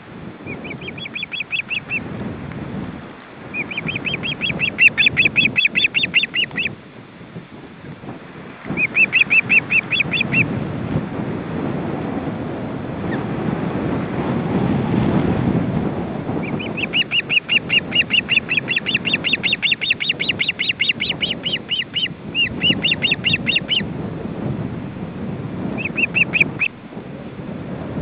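Ospreys calling in bouts of quick, high, repeated piping notes, about eight to ten a second, the longest run lasting about five seconds past the middle. Wind rushes on the microphone underneath and swells around the middle.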